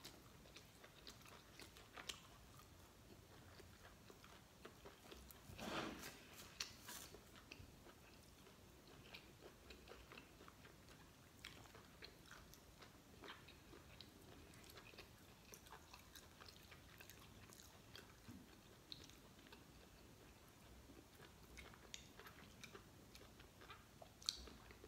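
Faint, close mouth sounds of a person chewing lobster meat: soft wet chewing with many small clicks and smacks, and a slightly louder noise about six seconds in.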